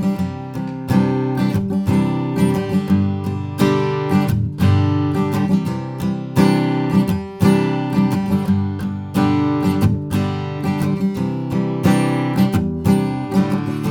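Acoustic guitar strummed in a steady rhythm of chords, played unaccompanied as a microphone sound sample with no EQ.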